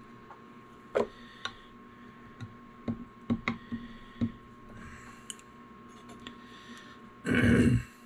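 Small metal clicks and taps as wire clips are handled with needle-nose pliers and pushed down into the slots of a lead-weight mold with a screwdriver, about a dozen irregular clicks in the first five seconds. About seven seconds in comes a single louder, half-second noise.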